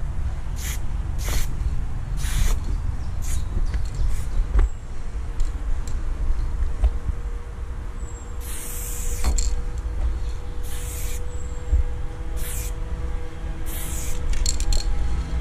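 Aerosol spray-paint can hissing in a string of short bursts, with one longer burst about eight and a half seconds in, as paint lines are laid on a wall. A steady low rumble runs underneath.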